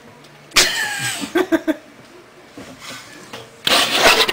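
A woman's sudden squeaky hiccup, a high voiced yelp that falls in pitch, followed by a few quick laughing pulses and a second, noisier burst near the end.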